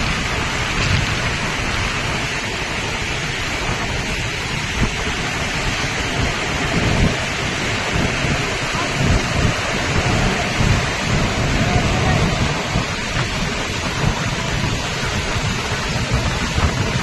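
Floodwater pouring through a dam's open spillway gates and churning over rocks below: a loud, steady rush of water with a deep, uneven rumble underneath.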